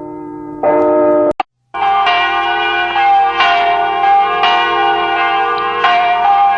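Cathedral church bells ringing, with repeated strikes about once a second, each one ringing on into the next. The sound cuts out abruptly for a moment about a second and a half in before the strikes resume.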